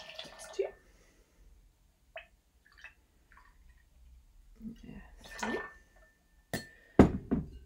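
Gin poured from a bottle into a metal jigger and tipped into a glass mixing glass, the liquid splashing in short pours, two of them. Several sharp knocks near the end, the loudest sounds here.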